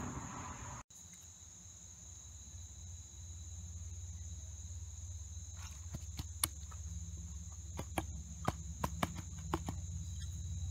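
Crickets trilling steadily over a low outdoor rumble, with a string of sharp clicks and ticks between about six and ten seconds in.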